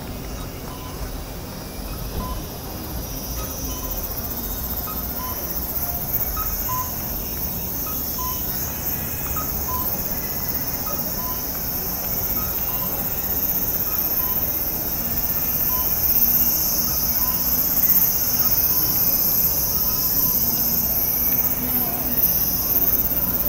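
Chorus of cicadas buzzing steadily and high, growing louder in the second half, over general street bustle. A faint two-note electronic chirp from a pedestrian crossing signal repeats at an even pace.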